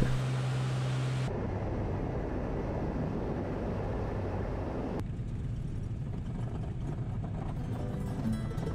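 Steady engine rumble and cabin noise of a moving vehicle. The sound changes abruptly about a second in and again midway.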